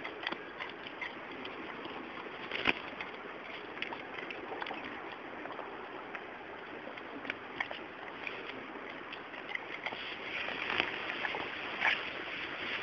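Steady rush of running water, with scattered small clicks and rustles throughout and one sharper click about two and a half seconds in.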